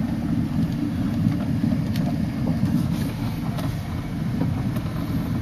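Steady low rumble of a vehicle driving.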